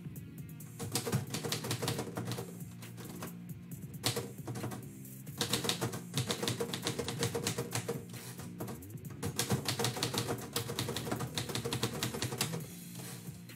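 Manual typewriter keys striking in fast runs, with a brief pause a little past four seconds; the typing stops about a second before the end. Background music with steady low tones plays underneath.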